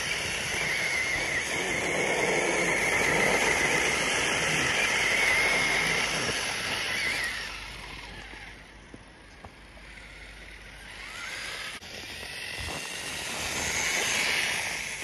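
Traxxas TRX-4 RC crawler driving through dry snow, its Hobbywing Fusion Pro 2300kv brushless motor whining at a wavering pitch on 2S power as the tyres churn snow. The sound is loudest for the first seven seconds, drops away for a few seconds with a brief rising whine, and swells again near the end.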